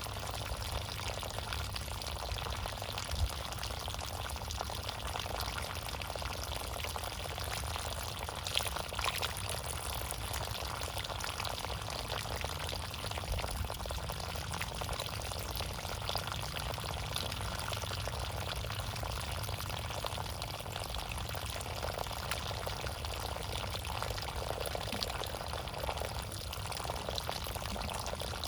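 Steady running water: a continuous, even wash of flowing, splashing water with a low rumble underneath.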